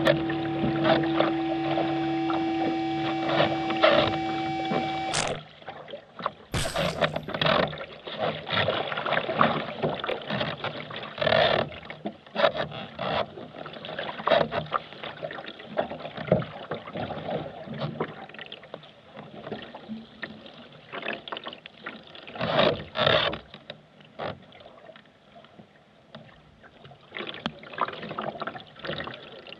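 Background music for about the first five seconds, then the live sound of sea-kayak paddling in choppy water: irregular paddle strokes and splashing water.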